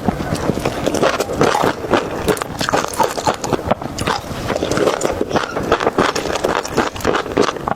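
Close-miked eating sounds: continuous chewing with rapid irregular wet clicks and smacks.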